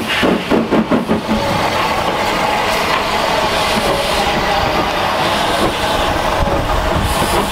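GER Y14 0-6-0 steam locomotive pulling away, chuffing quickly, about five beats a second, as it passes during the first second and a half. Then its coaches roll past with a steady rumble, the wheels clattering on the rail joints.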